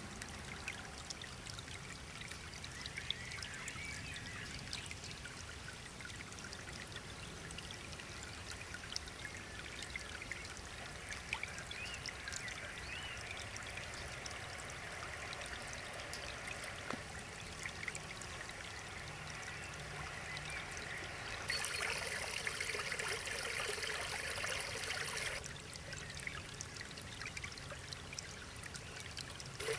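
A small woodland brook trickling and babbling over rocks. For about four seconds, some three quarters of the way through, the water rushes louder.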